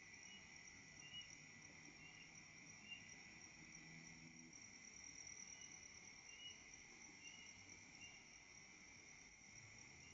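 Faint night insect chorus: crickets trilling steadily in two high bands, with short higher chirps every half second or so. A faint low hum joins briefly in the first half.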